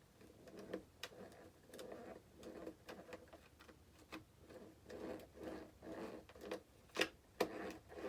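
Parts of a Freewing F-35 RC model jet being handled and fitted together by hand: a run of small clicks and rubbing scrapes, with a few sharper clicks near the end.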